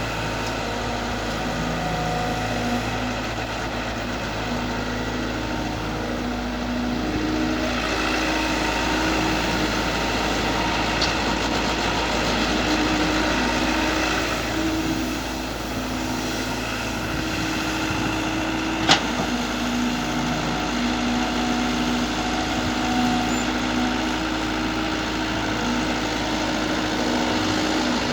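Mini excavator's engine running steadily, its tone rising and falling slightly as the machine is worked. A single sharp metallic clank comes about nineteen seconds in.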